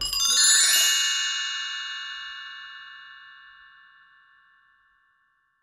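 A chime sound effect: a quick run of bright metallic bell tones that ring on together and fade away over about five seconds.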